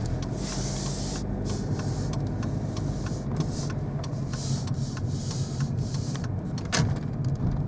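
Car engine and tyre noise heard from inside the moving car: a steady low hum with a hiss that swells and fades, and one sharp click near the end.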